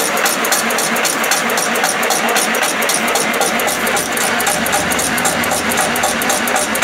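Automatic incense stick (agarbatti) making machine running, a steady mechanical whir with a fast, even clicking as it feeds bamboo sticks through and coats them with incense paste.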